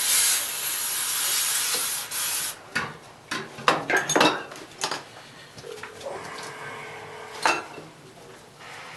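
A long steady spray hiss lasting about two and a half seconds as the oil burner's nozzle assembly is cleaned. It is followed by several sharp metallic clinks and knocks of small burner parts being handled.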